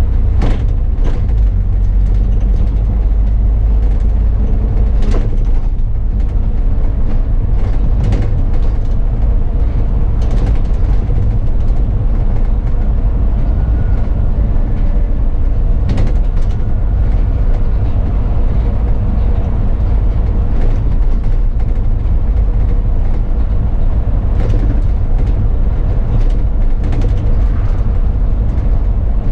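Bus on the move, heard from inside: a steady low engine and road rumble, with scattered short rattles and knocks from the body.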